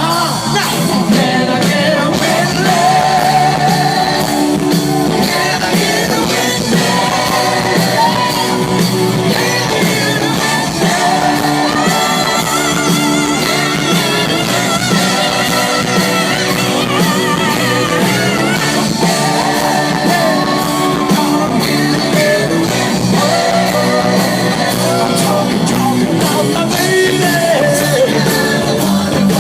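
Live rock band playing a soul-rock song, with a voice singing and shouting over it without clear words.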